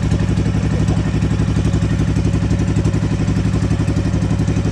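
Motorized outrigger boat (bangka) engine running steadily at constant speed, with a fast, even chugging.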